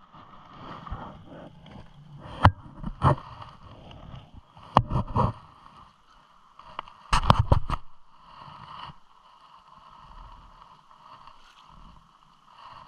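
Churning river water below a dam, a steady rushing hiss, broken by a few sharp knocks and rustles of handling close by, the loudest cluster about two thirds of the way through.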